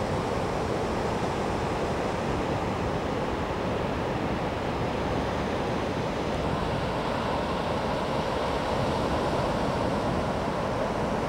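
Sea surf washing onto a sandy beach, heard as a steady, unbroken rush of noise.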